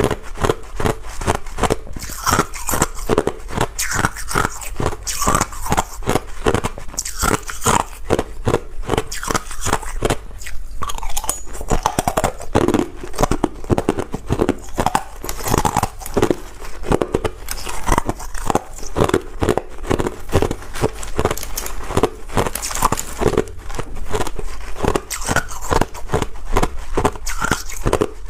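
Ice being chewed close to the microphone: rapid, repeated crunching, several crunches a second, with a short pause about ten seconds in.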